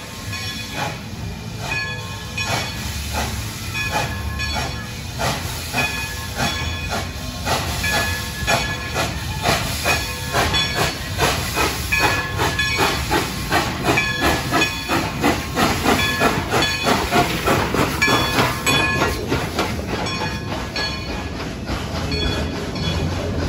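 Narrow-gauge Baldwin 2-8-2 steam locomotive 192 pulling away with its passenger train: a regular run of exhaust chuffs with hissing steam, getting louder for a while as it passes close by, then easing a little near the end.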